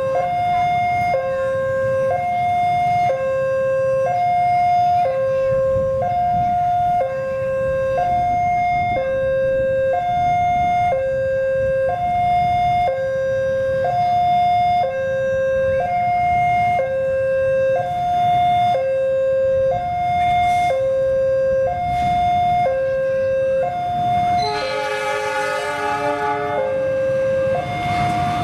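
Level-crossing warning alarm sounding two alternating tones, high then low, about a second each, over the low rumble of an approaching CC206 diesel locomotive and its train. Near the end the locomotive's horn sounds a chord of several notes for about two and a half seconds.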